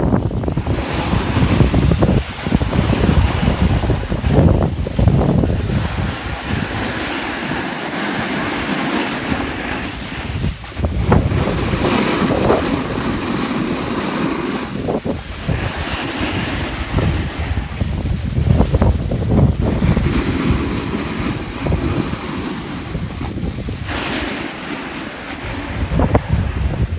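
Wind buffeting the microphone: a rough, rushing noise that swells and drops in gusts every few seconds.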